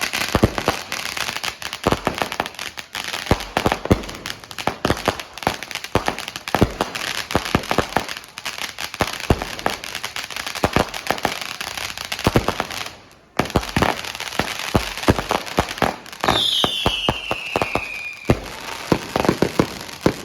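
Consumer fireworks going off in rapid strings of crackles and bangs, with a brief lull about thirteen seconds in. From about sixteen seconds in, a whistle falling in pitch sounds for about two seconds among the bangs.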